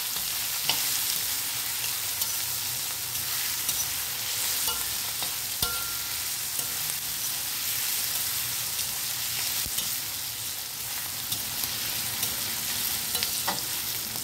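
Chopped onions sizzling in hot oil in a brass kadai, stirred with a metal spatula that scrapes and clicks against the pan now and then. The onions are being fried lightly until soft, not browned.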